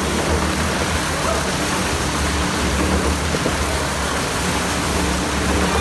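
Go-kart engine running at a steady speed as the kart circles the wooden wall of a Wall of Death drum, with a continuous low hum and no breaks.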